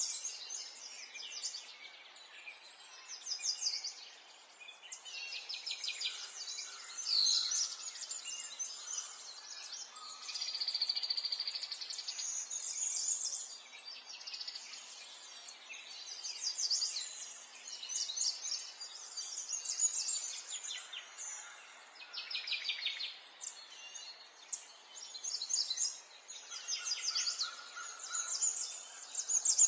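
Songbirds singing continuously, several birds overlapping with rapid trills and short chirping phrases, over a faint steady background hiss.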